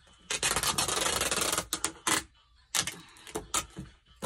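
Green packing tape pulled off its roll in one long rasping stretch of about a second and a half, then several short rubbing strokes as the tape is smoothed down onto the cardboard box.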